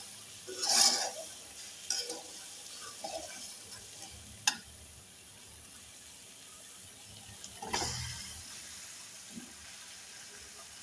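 Spice paste sizzling in a hot metal wok while a metal spatula stirs and scrapes it. There is a sharp clink about four and a half seconds in, and a louder burst of sizzling near eight seconds as raw chicken pieces go into the paste.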